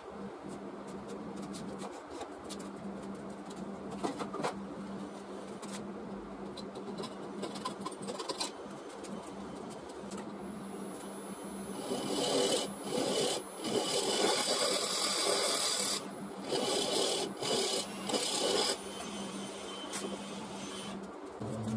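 Wood lathe humming steadily as the spinning mulberry bowl's foot is worked by hand, with a rough scraping and rubbing against the wood. The rubbing grows louder in several stretches from about 12 to 19 seconds in.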